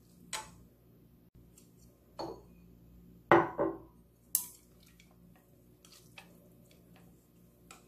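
Dishes knocking as ramyeon is served from a stainless steel pot into ceramic bowls with wooden chopsticks: a few separate clinks and knocks, the loudest a double knock about three and a half seconds in, then small ticks.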